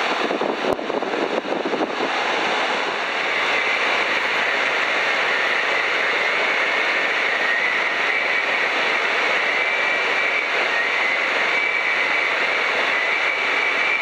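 Piper PA-12 Super Cruiser's piston engine and propeller running at high power for takeoff and climb, heard from inside the cabin with a dense rushing of wind and engine noise. A few light knocks come in the first two seconds, and a steady high whine sets in about three seconds in.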